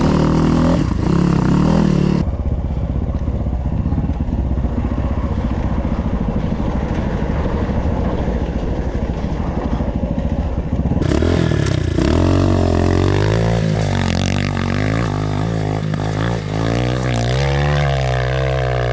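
Enduro motorcycle engine running hard under load on a hill climb. From about 12 s the revs rise and fall again and again as the rider works the throttle.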